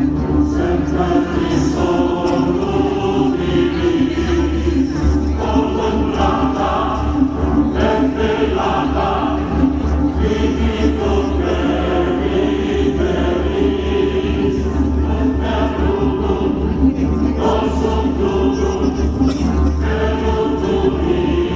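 Choral music playing: a choir singing held chords over an accompaniment.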